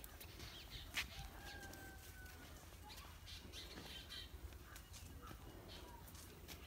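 Faint calls of chickens and other birds, one drawn-out call a little after a second in, over scattered small clicks. A single sharp click about a second in is the loudest sound.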